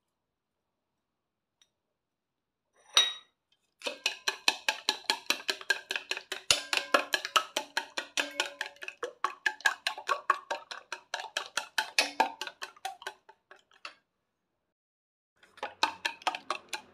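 Wooden chopsticks beating eggs for an omelette in a stainless steel bowl: quick, even clicks of wood against metal, about six a second. After a few seconds of silence the beating starts with a single clink, pauses briefly near the end, then resumes.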